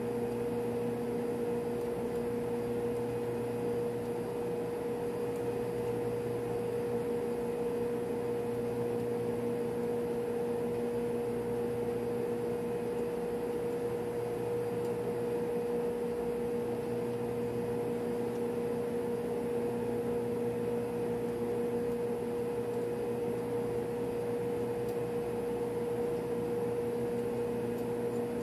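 Steady drone of running refrigeration plant machinery on board a ship, a constant even hum with one strong mid-pitched tone over lower ones.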